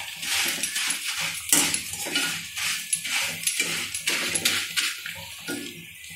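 A metal utensil scraping and clinking against a kadhai while stirring and tossing fried corn flakes, in quick irregular strokes that thin out near the end.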